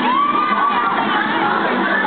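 A crowd cheering and shouting, many voices at once, with one long shout near the start.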